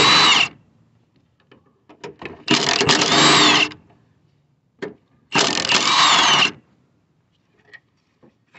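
Power ratchet on a long extension spinning out the 14 mm engine-mount bolts: three separate runs of about a second each, one per bolt, with small clicks of the socket between them.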